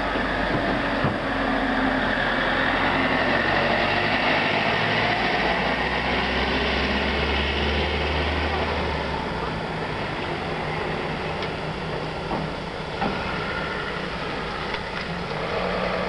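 Street traffic noise: a steady rumble of passing vehicles, with a heavier low engine rumble for a few seconds in the middle.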